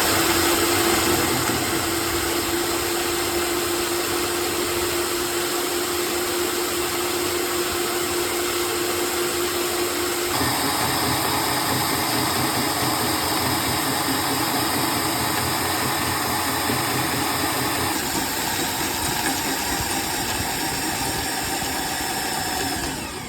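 A machine running steadily: dense noise with a held hum underneath. Its character shifts abruptly about ten seconds in and again near eighteen seconds.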